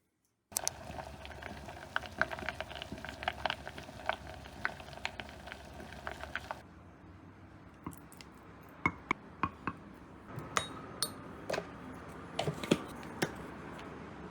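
Kitchen food-prep sounds: about six seconds of a steady hiss with many small crackles and pops. Then, after a sudden change, scattered clinks and taps of utensils against glass and dishes.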